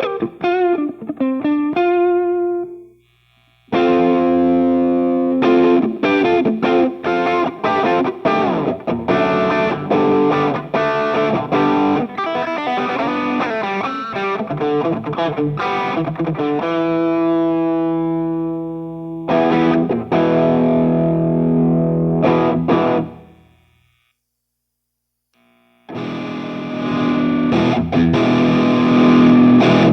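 Electric guitar played through a Saphue overdrive pedal and a cabinet simulator, recorded direct: distorted lead phrases with quick picked notes and a held note, stopping briefly about three seconds in and for about two seconds near the end.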